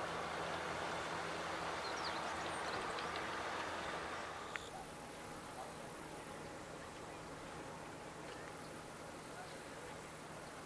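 Small tour boat's outboard motor running steadily as the boat passes close by. About four and a half seconds in it drops away to a much fainter hum under quiet outdoor ambience with a few faint chirps.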